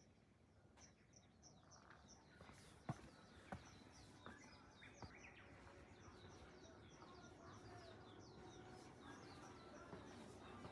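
Faint outdoor ambience with rapid high-pitched chirping, repeating about five times a second, and a few sharp clicks in the first half.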